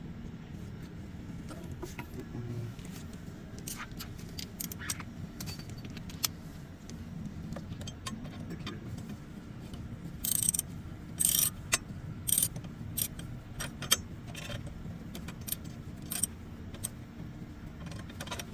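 Metal parts and hand tools clinking and tapping, with short sharp metallic clicks and a few louder clanks about ten to fourteen seconds in, over a steady low hum.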